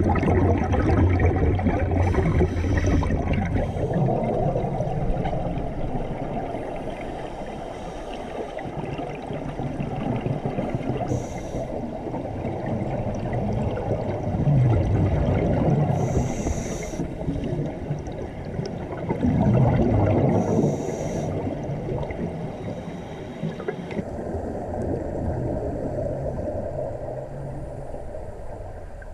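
Scuba diver breathing through a regulator underwater: a low, swelling bubbling of exhaled air, with three short high hisses.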